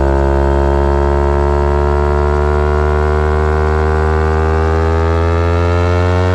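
Kawasaki Ninja 250R's parallel-twin engine through a full Graves race exhaust, running steadily under throttle with its pitch climbing slowly as the revs build.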